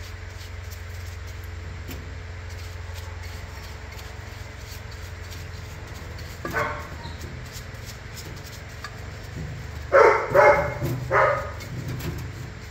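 A dog barks once about six and a half seconds in, then three times in quick succession near the end. Under the barks is a steady low hum with the faint scrubbing of a brush on an engine case in solvent.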